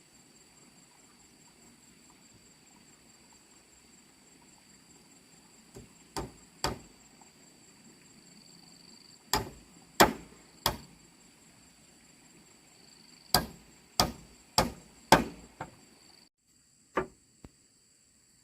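Sharp tool blows on wood, struck in short runs of two, three and five, about two a second.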